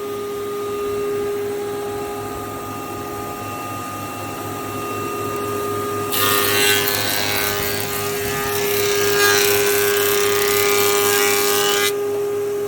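STU 630 thicknesser with a four-knife cutterblock running with a steady hum. About six seconds in, a board is fed through and the knives cut with a loud noise for about six seconds, which stops abruptly as the board leaves the cutterblock.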